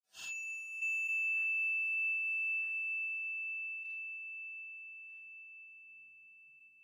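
A single bright bell-like ding, struck once at the start and ringing out on one clear tone that slowly fades away. Two faint clicks sound under it in the first few seconds.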